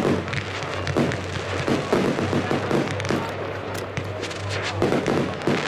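Fireworks display going off: repeated bangs and crackling from rising comets and bursting shells, over music playing throughout.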